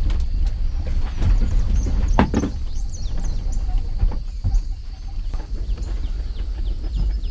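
Mitsubishi L300 minibus rolling slowly as it is pushed by hand to bump-start it, its battery flat: a steady low rumble of tyres and body, with a louder knock about two seconds in and short high chirps throughout.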